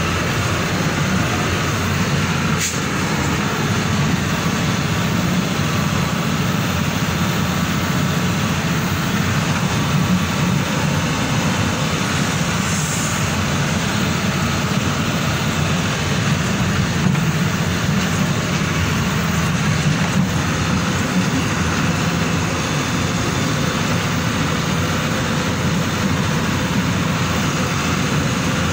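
Engine and road noise from inside a vehicle driving on an unpaved dirt road, steady and loud, with one sharp knock about three seconds in.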